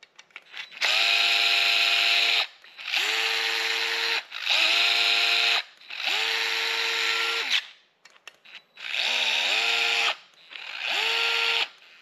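DeWalt 8V cordless gyroscopic screwdriver turning a screw on a metal electrical box in six short bursts. Its motor whine often climbs in pitch as each burst starts, its speed set by how far the wrist is twisted. There are faint clicks between the bursts.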